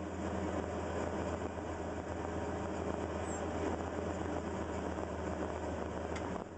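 Cat 320 excavator's diesel engine running steadily, heard from inside the operator's cab, a continuous low drone.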